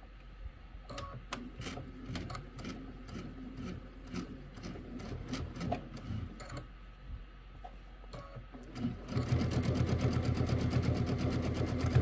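Computerized sewing machine stitching a seam through quilted fabric: intermittent clicking at first, then running fast and steady from about nine seconds in, a rapid even rattle of stitches.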